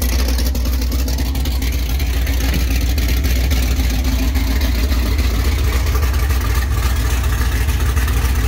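Loud, steady running of the swapped 4.8 L LS V8 in an '04 Mustang GT on open straight headers, with no exhaust pipes or mufflers behind them.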